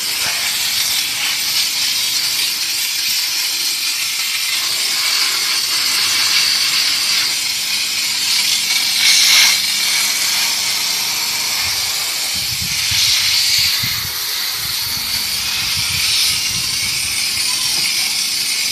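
Steam jet hissing steadily from the spray gun of a 220 V 6 kW commercial steam car-wash machine as it is played over a car's tyre and wheel, louder for a moment about halfway through.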